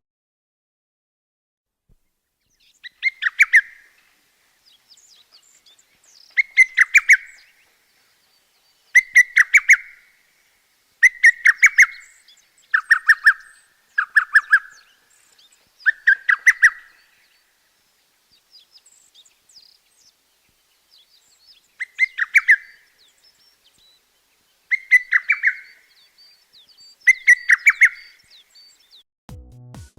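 A bird singing in short phrases of quick repeated notes, about ten phrases a second or two apart, with a pause of a few seconds in the middle.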